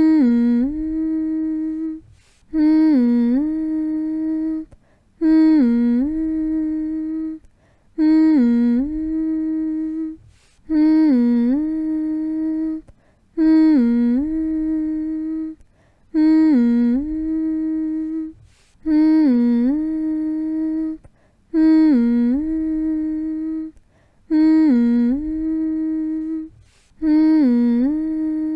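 A person humming a soothing phrase over and over, about once every two to three seconds: a held note that dips briefly lower and comes back up, then a short breath-like pause, repeated the same way each time.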